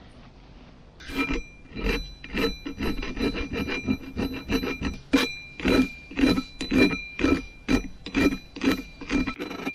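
Hand file rasping back and forth over the teeth of the grader's steel chain-drive sprocket, about two strokes a second, starting about a second in, with the sprocket ringing faintly under the strokes. The filing takes off burrs and rough edges so the chain can sit down properly on the sprocket.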